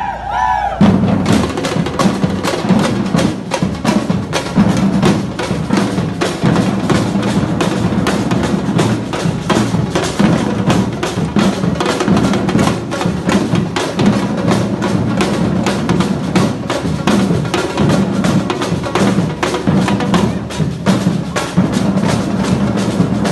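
Batucada drum band playing a steady, driving samba rhythm, with deep bass drums under rattling snare drums and other hand percussion.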